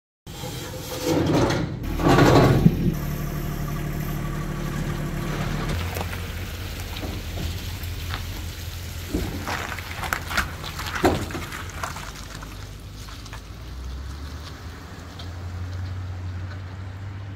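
Chevrolet pickup truck's engine running as it pulls away towing a flatbed trailer loaded with a compact tractor, the hum dropping in pitch partway through and swelling again near the end. A few sharp clanks and rattles come from the rig along the way, and a couple of loud noisy knocks come in the first few seconds.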